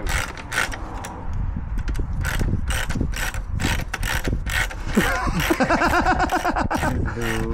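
Ratchet wrench clicking in quick, even strokes, about three clicks a second, as a socket works the last exhaust hanger bolt loose on an old Honda CB750. A wavering pitched sound comes in about five seconds in.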